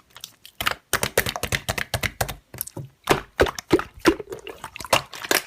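Slime being squished and pressed by hand, giving a rapid, irregular run of wet clicks and pops.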